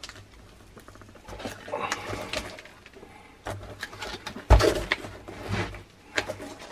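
Handling noise from gloved hands tearing a decomposed rubber boot sole off its bonded steel plate: irregular scraping, rustling and small clicks, with one louder knock about four and a half seconds in.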